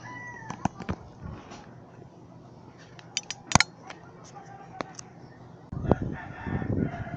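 Handheld phone being moved about: scattered sharp clicks and knocks, then loud rustling and bumping against the microphone from about six seconds in. A rooster's crow dies away just at the start.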